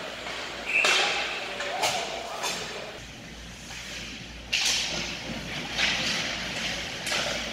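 Ice hockey play in an indoor rink: sharp clacks and scrapes of sticks, puck and skate blades on the ice, about a second or two apart and echoing in the arena, with faint voices in the background.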